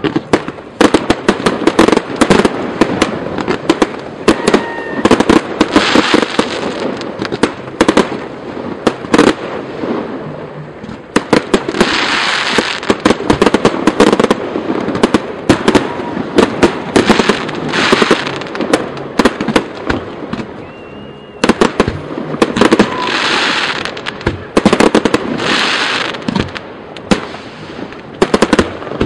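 Fireworks display: rapid volleys of aerial shell bursts, many bangs in quick succession, with stretches of dense crackling hiss between the loudest bangs and brief lulls about a third and two thirds of the way through.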